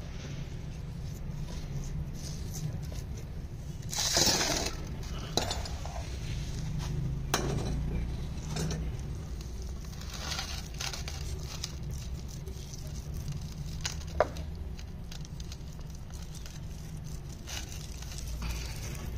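Food-preparation handling sounds: scattered sharp clinks of a metal spoon and utensils against clay and steel dishes, and soft rubbing as hands work spice paste into a raw lamb leg in a steel tray. A brief louder noise comes about four seconds in, over a steady low hum.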